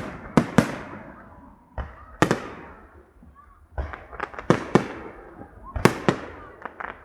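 Fireworks display: aerial shells bursting in a string of sharp bangs at irregular intervals, some in quick pairs, each followed by a rolling echo.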